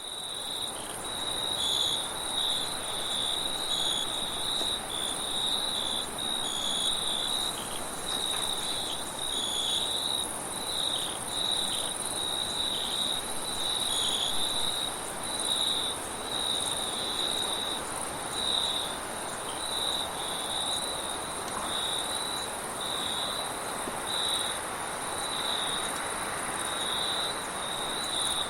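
Crickets chirping in a steady pulsing chorus, over a soft rush of wind that swells and eases.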